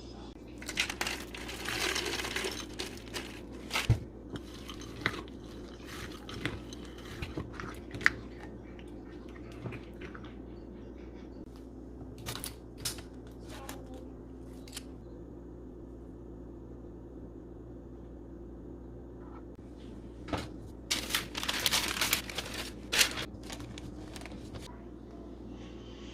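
Kitchen handling sounds: groups of short clicks, clinks and crinkling over a steady low hum, bunched near the start, around the middle and again late on, with a quieter stretch between.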